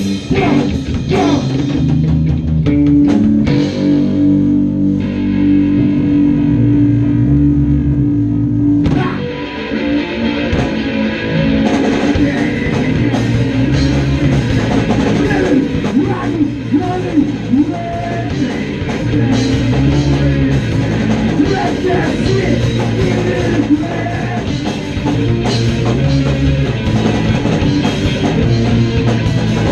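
Three-piece punk band playing an instrumental jam live: electric bass, electric guitar and drum kit. Held guitar and bass notes ring over lighter drumming for the first several seconds, then the drums and cymbals come in fuller about ten seconds in.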